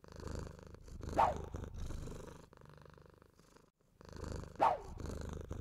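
A domestic cat purring in slow, rhythmic breaths, with a short, sharp cat call twice, about three and a half seconds apart.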